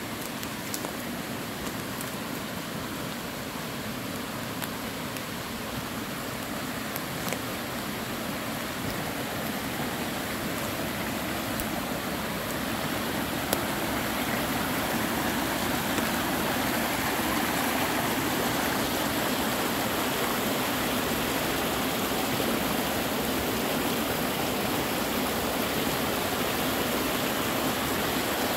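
Rain-swollen woodland creek rushing and splashing over rocks, a steady rush that grows louder through the first half and then holds.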